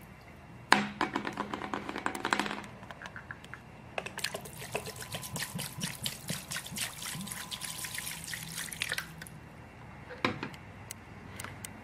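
Water splashing and running onto a smartphone in two bursts of rapid splashes and drips. A single knock comes near the end.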